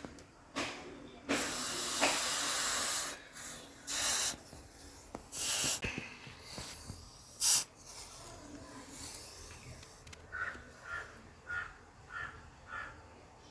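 Hissing in several bursts, the longest lasting nearly two seconds, like hot steel being dipped again and again into water to quench and harden a freshly forged chisel. Near the end come five short chirps, evenly spaced.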